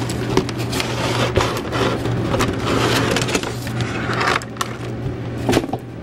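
Cardboard box and plastic packaging rustling and scraping as the parts of a liquid CPU cooler are handled and lifted out, busiest for the first four seconds, with a sharp knock near the end. A steady low hum runs underneath.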